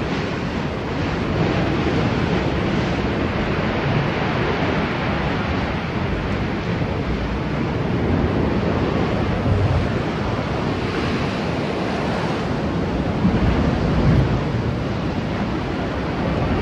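Sea surf washing against a rocky shore, a steady rushing noise, with wind buffeting the microphone.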